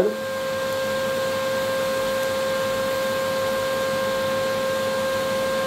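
DC TIG welding arc on steel, fed by a Kemppi TIG welder, burning steadily: a constant buzzing tone over a soft hiss, with no crackle or spatter.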